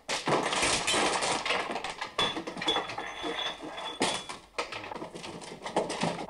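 Indistinct voices in the background, with scattered short knocks and clicks.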